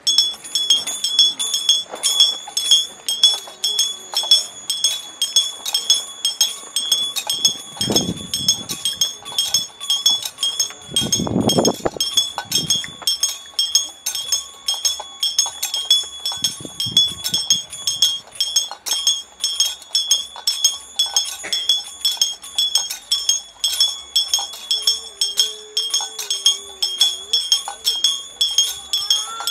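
Altar bell rung continuously during benediction with the Blessed Sacrament, a steady run of bright metallic rings about two to three strikes a second, starting abruptly.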